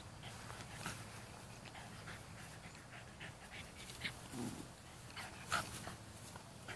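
Small long-haired dog gnawing a rubber chew toy while lying in dry grass: faint, scattered clicks and rustles, the sharpest about five and a half seconds in.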